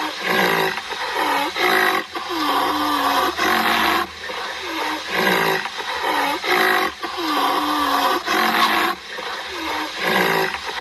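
A large wild animal roaring over and over, about one loud call a second, each call dipping in pitch and rising again.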